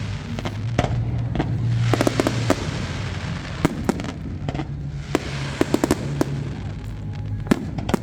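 Fireworks display: sharp bangs and cracks, several in quick clusters, with a hissing crackle as the shells burst, over a steady low hum.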